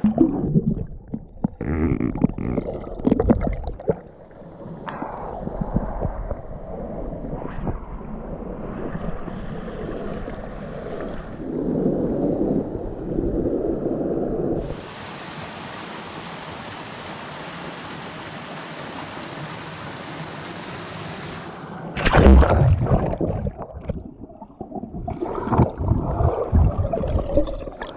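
Water in a rocky creek: irregular splashing and sloshing with some knocks, then a steady rush of falling water for several seconds that starts and stops abruptly, then heavy thumps and splashing near the end.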